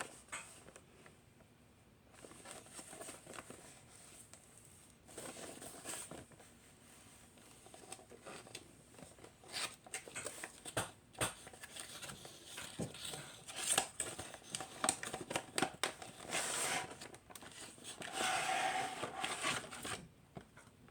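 Cardboard box and plastic blister packaging of a diecast model truck being opened by hand, with irregular clicks and rustling that get busier in the second half.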